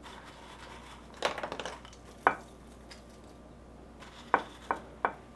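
Tortilla chips being picked by hand from a small ceramic bowl: a brief crisp rustle about a second in, a single click, then a few sharp clicks near the end as chips knock against the bowl.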